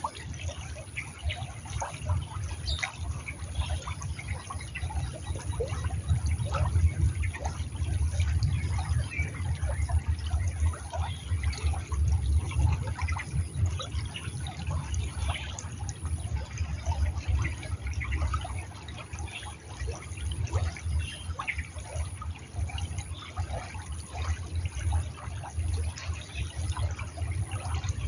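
Shallow stream running and trickling over stones, a continuous scatter of small splashes over a steady low rumble.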